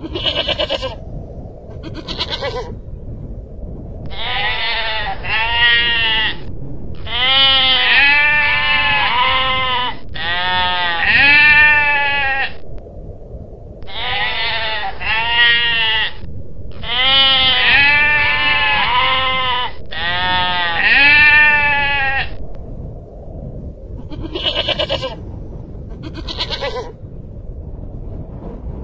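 Long-tailed goral calling: a few short, sharp high calls, then several bouts of rapid repeated bleats, each rising and falling in pitch, and more short sharp calls near the end.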